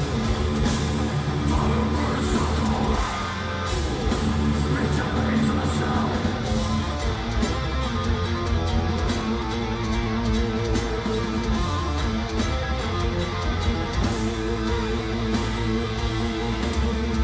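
Metal band playing live: distorted electric guitars, bass and drums with crashing cymbals. There is a brief lull about three and a half seconds in, then a repeated guitar riff.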